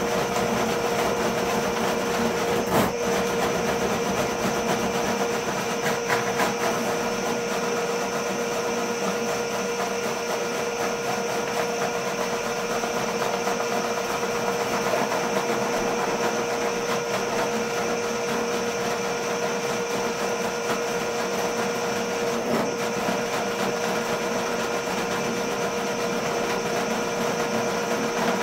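RIDGID K-50 sectional drain cleaner running steadily, its motor spinning the cable down a clogged floor drain, with a constant hum. A single knock about three seconds in.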